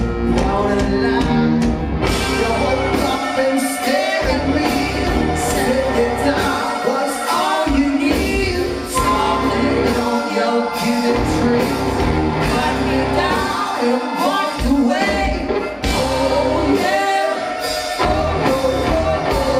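Rock band playing live, with electric guitars, bass and drums and a voice singing over them; the bass and drums drop out briefly several times.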